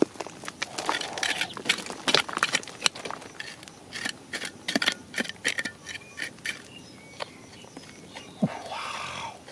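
A hand scraping and sweeping loose dry soil, with many short gritty scratches and clicks as crumbs of dirt scatter and patter down.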